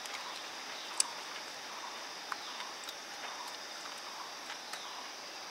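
Steady high-pitched insect chorus in the forest, with scattered small clicks and taps, the sharpest about a second in.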